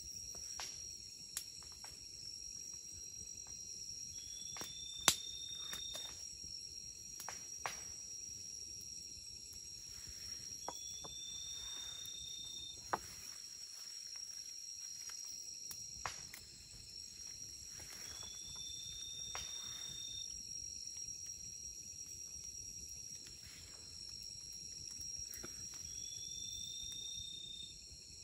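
Night-time tropical forest insect chorus: steady high-pitched shrilling of crickets, with a separate rising call, about two seconds long, repeating four times at even spacing. Scattered sharp clicks, the loudest about five seconds in.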